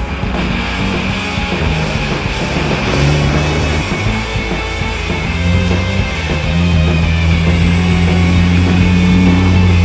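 Background rock music with held, changing bass notes.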